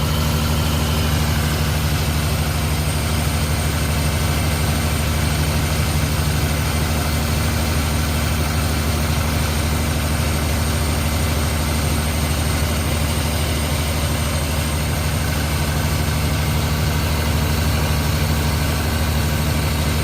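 Toyota Supra MA70's 7M-GTE straight-six engine idling steadily.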